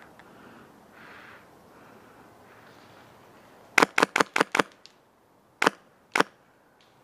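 Airsoft rifle firing single shots: a quick run of five sharp shots a little under four seconds in, then two more shots about half a second apart.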